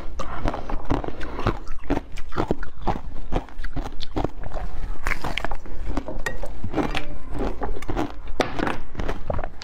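Close-miked eating: biting into and chewing a clear slab packed with pomegranate seeds. It makes a quick, irregular run of sharp crunches and pops.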